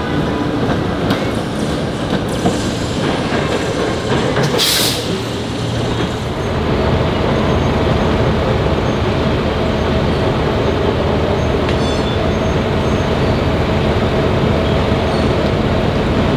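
PCC streetcar running on street track amid city traffic, with a brief hiss of air about five seconds in. From about six seconds a steady hum with a constant whine in it takes over.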